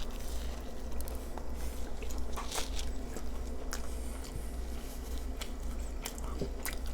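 Close-miked eating: a person biting and chewing food, with scattered small mouth clicks over a steady low hum.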